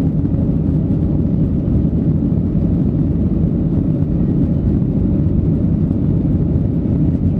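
Cabin noise of a Boeing 737-800 climbing after takeoff: its two CFM56-7B27 turbofans and the rushing airflow make a steady low rumble inside the cabin.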